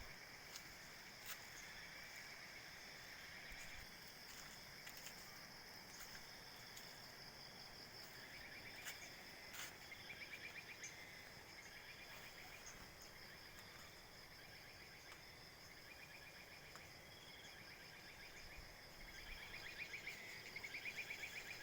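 Faint night insect chorus: a steady high trill with quicker pulsed chirping lower down that grows a little near the end, and a few faint clicks.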